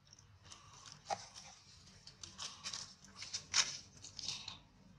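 Irregular dry crackles and clicks, the sharpest about a second in and the loudest about three and a half seconds in, from macaques grooming and handling babies as they shift on dry leaf litter.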